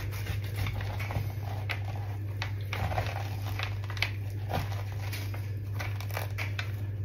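Spoon scraping seeds and stringy pulp out of a halved pumpkin: a run of short, irregular scrapes and clicks, over a steady low hum.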